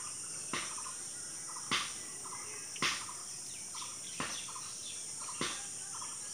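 Steady high-pitched insect drone with birds chirping, broken by five short, sharp clicks about a second apart.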